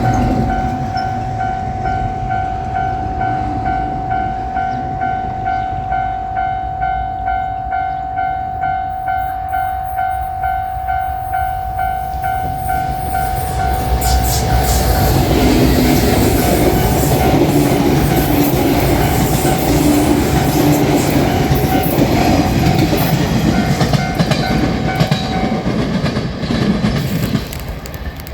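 Japanese railroad crossing bell ringing in a steady pulsing clang, about two strokes a second. About halfway through, THE ROYAL EXPRESS cruise train passes over the crossing with a loud rumble and wheels clattering over the rail joints. The rumble fades near the end, just after the bell stops.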